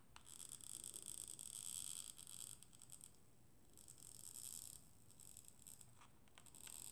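Faint scraping and rubbing as a gloved hand turns a small ceramic teacup on its saucer, in two stretches of a few seconds and one short one near the end.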